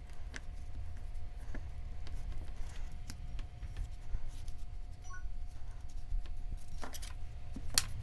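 Quiet handling sounds of hands pressing and shaping a soft lump of air-dry clay: faint scattered taps and clicks, with a sharper click near the end, over a steady low hum.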